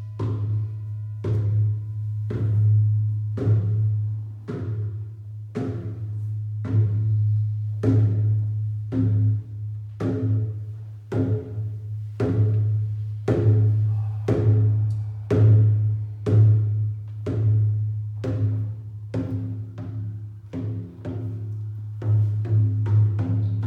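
A low, booming drum beaten in a steady, even rhythm of about three strokes every two seconds, each stroke ringing on under the next.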